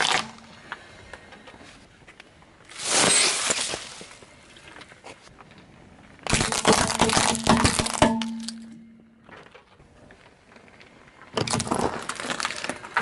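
Car tyre rolling over objects on asphalt and crushing them: three bursts of cracking and crunching, about three seconds in, from about six to eight seconds in, and again near the end. The middle burst is plastic gel-filled toys splitting under the wheel.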